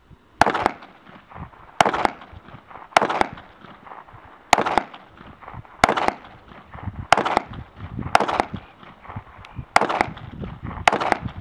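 Glock 26 subcompact 9mm pistol fired nine times at a steady, unhurried pace, the shots about a second to a second and a half apart, each a sharp crack with a short ring after it.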